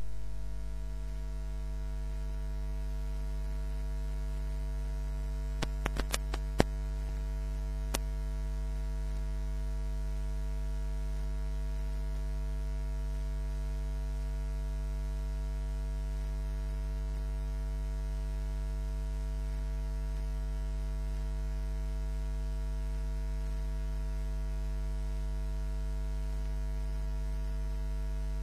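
Steady electrical mains hum: a low, unchanging drone with a buzzy edge. A few small clicks come about six seconds in, and one more near eight seconds.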